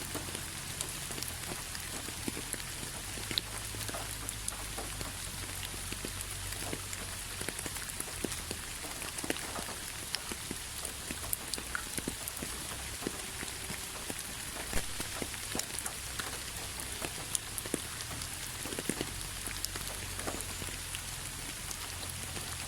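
Steady rain with many separate drops ticking and pattering on a hard surface over a constant hiss.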